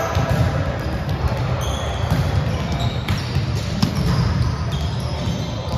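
Volleyballs being hit and bouncing on a hardwood gym floor, many scattered sharp smacks and thuds, echoing in a large hall, with a few short high squeaks and players' voices.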